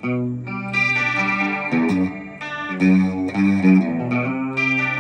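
Electric guitar played through a Zoom G5n multi-effects processor with its chorus effect switched on: a run of sustained single notes and chords, changing every half second or so.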